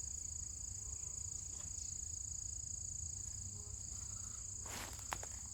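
A steady, high-pitched insect chorus, trilling without a break. A few footsteps come near the end.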